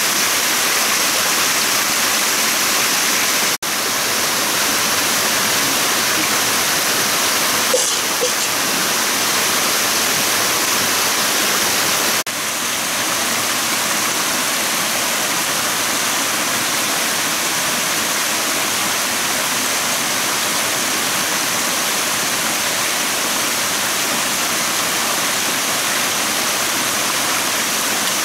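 A shallow rocky forest stream pouring over low cascades: a steady rush of water, dipping briefly twice.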